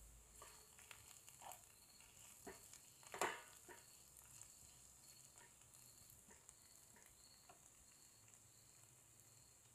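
Faint scrapes and taps of a spatula stirring diced vegetables in a nonstick pan, with one louder stroke about three seconds in.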